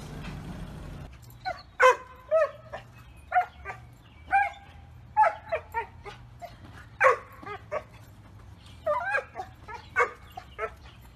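Small dog yapping, a string of short, high barks and yips, many bending in pitch, coming in quick clusters with brief gaps, starting about a second in.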